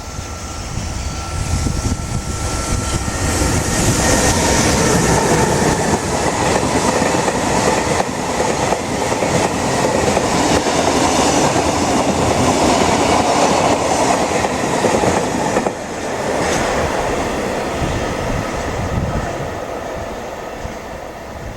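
A freight train of Taki 1000 tank wagons rolling past at speed, its wheels clattering over the rail joints in a steady rumble. The noise eases off over the last few seconds.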